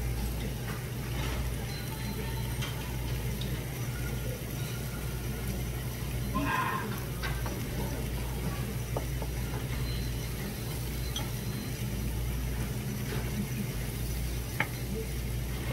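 Steady low hum of a restaurant room, with scattered light clinks of dishes and utensils on the table and a brief faint voice about six seconds in.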